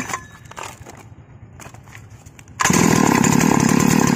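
Freshly assembled two-stroke chainsaw being pull-started: the starter cord rattles at the start, and about two and a half seconds in the engine catches and runs steadily.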